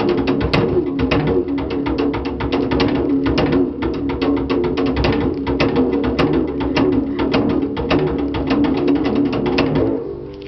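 Improvised drumming with a tipper-style beater on a plastic-bucket bass diddley bow: quick strikes several times a second, with the bucket's low droning string tone sounding under them. The playing stops near the end and rings off.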